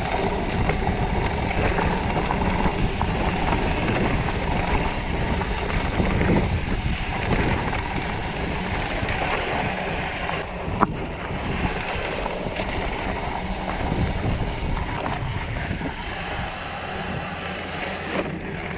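Wind rushing over the microphone and the tyres of a rigid mountain bike rolling and rattling over dirt singletrack on a fast descent, with one sharp knock about eleven seconds in. The rumble eases off near the end as the bike slows.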